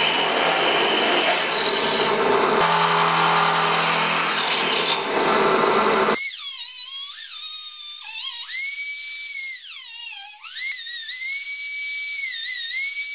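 A drill press cutting into square steel tubing as the bit is moved along it to mill a slot. About six seconds in this gives way to a high-speed rotary tool with a small cut-off disc, whining at a steady high pitch that dips each time the disc bites into the steel to finish the slot.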